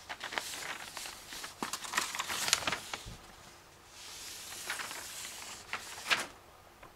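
A long paper printout rustling and crinkling as it is handled, in irregular bursts with sharp crackles, loudest about two and a half seconds in and again around six seconds.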